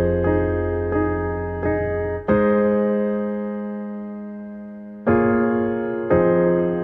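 Slow, gentle piano music: soft chords struck about once a second and left to ring out, then one chord held for nearly three seconds before two more follow.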